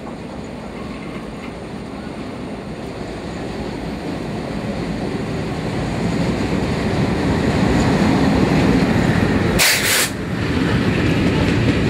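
Train running on the rails, a steady rumble growing gradually louder, with a short, loud hiss about ten seconds in.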